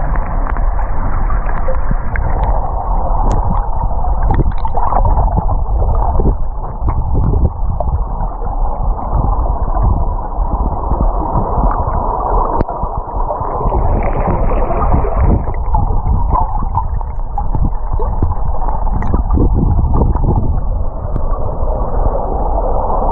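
Muffled underwater noise picked up by a camera in a waterproof housing: a steady low rumble and hiss of moving water, with brief rises in the hiss.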